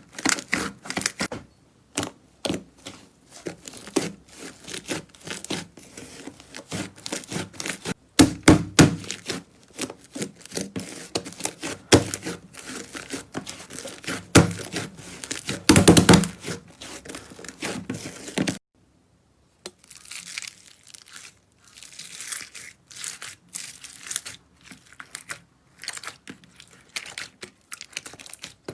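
Hands squeezing, stretching and poking slime, giving fast irregular sticky crackles and pops, with louder squelching bursts about a third and halfway through. About two-thirds through, the sound cuts off for a moment and a quieter run of crackling follows.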